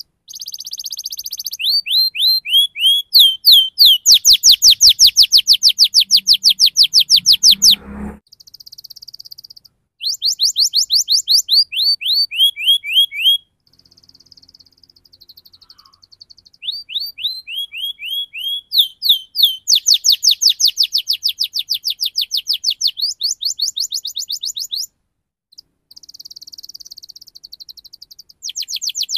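Domestic canary singing: long rolling phrases of rapid, high chirps, several notes a second, with short breaks between phrases.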